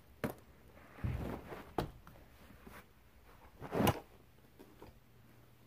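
Phone handling noise while searching for a bag: a few knocks, scrapes and bumps against the microphone, the loudest just under four seconds in.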